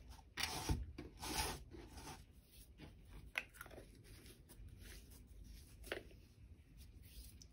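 Handling noises on a craft table: a canvas board slid and turned on a cutting mat, two short scrapes in the first two seconds, then a few light clicks and taps.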